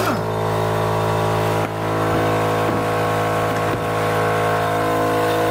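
Air compressor running with a steady, even hum, supplying the air impact wrench used for the wheel change, with a few faint clanks of wheel work over it.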